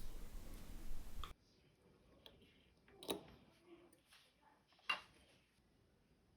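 A few faint, sharp clicks of small watchmaker's tools touching the parts of a pocket-watch mainspring barrel, the clearest about three and five seconds in. A light hiss cuts off suddenly a little over a second in.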